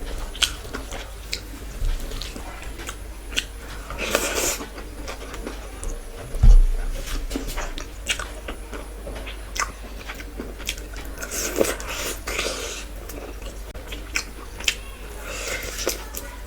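Close-miked eating of a chicken curry and rice meal: chewing and biting with many short wet clicks and smacks, and a few longer spells of noisy chewing. A low thump about six seconds in is the loudest sound.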